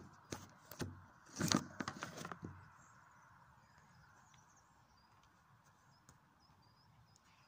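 Phone being handled and set down: a run of knocks and rubs on the microphone in the first two and a half seconds, the loudest about a second and a half in. After that, faint bird chirps over a steady outdoor hum.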